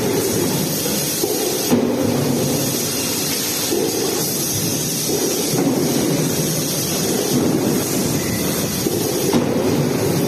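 Steady factory machinery din from a robotic stamping cell: a low rumble with a hiss above it that swells and eases in a repeating cycle, with a faint click about every four seconds.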